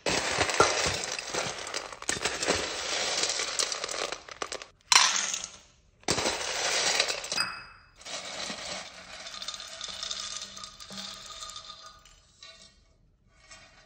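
Oranda, small hard crunchy dough pellets, rattling and clattering against stainless steel as they are scooped up with a metal measuring cup and poured into a steel bowl, in several pours with short pauses between. A sharp, loud pour comes about five seconds in.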